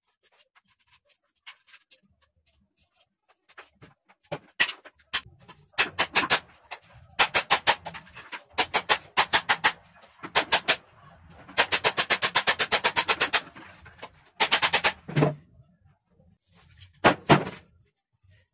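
Bursts of quick, light hammer taps on a circular saw's motor housing, driving the stator out; the longest run is about two seconds of rapid taps.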